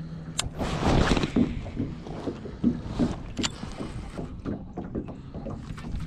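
Wind buffeting the microphone over choppy water slapping against a small boat's hull, with a few sharp clicks and soft knocks.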